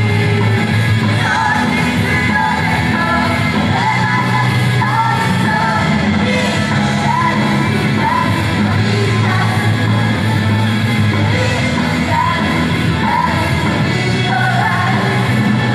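Japanese idol group singing over a loud pop-rock backing track.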